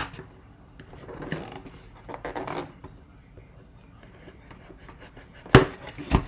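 A knife blade slitting packing tape on a cardboard box, two scraping strokes, then two sharp knocks near the end as the box is turned over and set down on the table.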